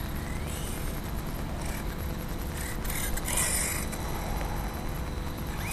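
1/8-scale electric brushless RC truggy driving on asphalt: its motor whine rises briefly under throttle, and the motor and tyre hiss get louder about three seconds in, over a steady low rumble.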